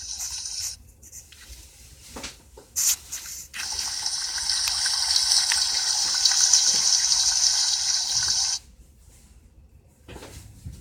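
Water running from a tap for about five seconds, starting and stopping abruptly, with a few clicks before it.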